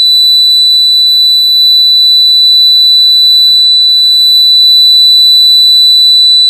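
Loud, steady, high-pitched 3978 Hz tone from a loudspeaker-driven Chladni plate. At this frequency the plate resonates and the salt on it gathers into a pattern of wavy lines.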